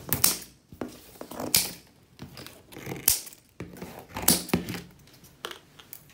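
Scissors snipping through yellow plastic straps on a boxed safe, with the plastic crinkling and tearing as the straps are pulled away; several sharp cuts about a second apart.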